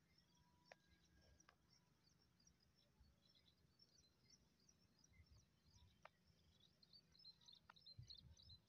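Near silence: faint outdoor ambience with many small, high bird chirps scattered throughout, and a faint low rumble that swells briefly near the end.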